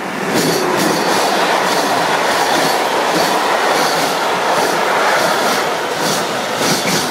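An electric locomotive hauling a freight train of wagons loaded with semi-trailers passes close by. The wheels on the rails make a loud, steady running noise with repeated clicks. The sound gets sharply louder right at the start as the locomotive arrives.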